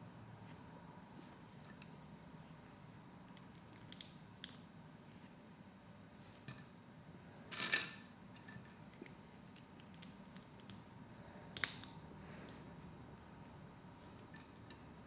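Lego Technic plastic pieces being handled and pressed together: scattered small clicks, with a louder short clatter about halfway through and a couple more clicks a few seconds later.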